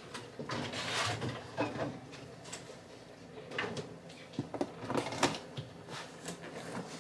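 Scattered faint knocks, clicks and rustles of things being handled and moved.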